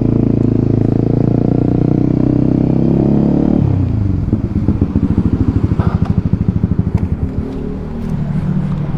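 Honda CB150R's single-cylinder engine running steadily as the motorcycle rolls slowly. About three and a half seconds in the revs drop suddenly to a low, pulsing chug that settles to a steadier low note near the end.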